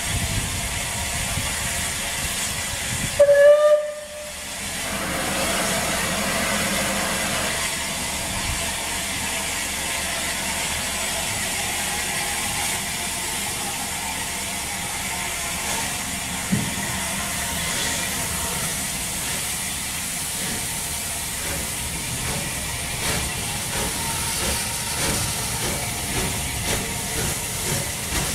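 Southern Railway Bulleid Battle of Britain class steam locomotive 34072 '257 Squadron' gives a short whistle blast about three seconds in. A steady hiss of steam follows, and near the end slow chuffs begin as it moves off with steam blowing from the cylinder drain cocks.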